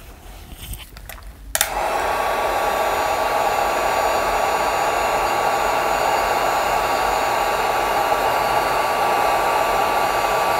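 Electric heat gun switched on about a second and a half in, then running steadily: an even fan rush with a thin steady whine, shrinking heat-shrink tubing over a soldered wire splice.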